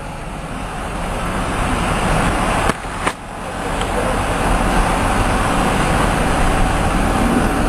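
Engine and traffic noise from vehicles at a toll booth, heard through an open car window, growing louder as the vehicle pulls up, with a short dip and a click about three seconds in.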